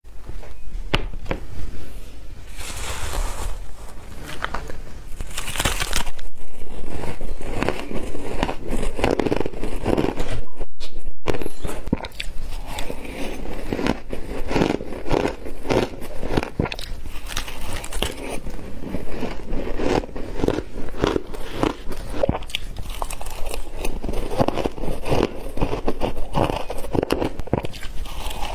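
Shaved ice being bitten and chewed, a dense run of crisp crunches and crackles, with two louder stretches of crunching near the middle.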